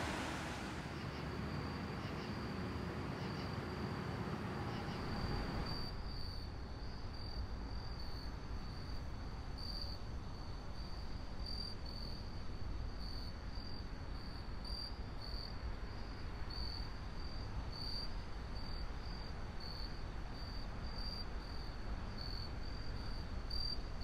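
A steady hiss for the first five seconds or so, then crickets chirping in a regular high-pitched pulse, about one and a half chirps a second, over a low rumble.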